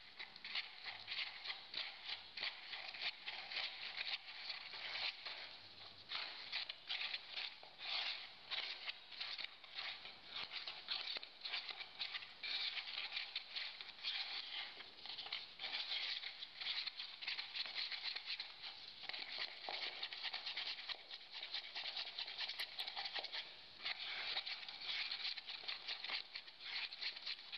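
Geopolymer cement powder and liquid hardener being stirred by hand with a spatula in a plastic cup: quick, continuous scraping and clicking strokes against the cup, with a few brief pauses. This is the binder being worked toward a fluid resin.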